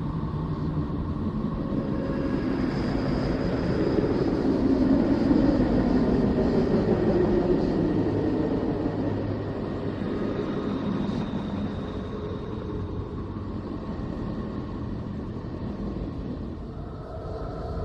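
Spacecraft radio and plasma-wave recording turned into sound: a steady rumbling hiss that swells about a third of the way in and then eases off, with faint held tones and new higher tones coming in near the end.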